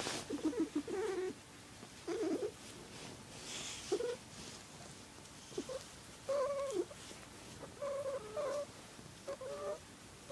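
A domestic cat's high, warbling, girly-sounding purr, coming in about seven short wavering bursts, irregularly spaced, while it is being stroked.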